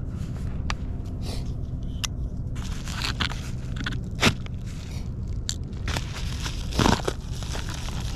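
Yellow padded bubble mailer being cut open and handled: paper and padding crinkle and crunch, with scrapes and sharp clicks. The loudest crunches come about four seconds in and again near seven seconds.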